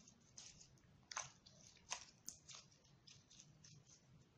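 Homemade slime being kneaded and squeezed by hand with small decorative pebbles mixed in: faint, irregular little squishes and crackles.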